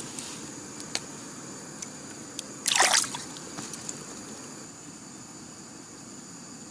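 A short splash of water in an ice-fishing hole a little under three seconds in, after a few faint clicks, over a steady hiss.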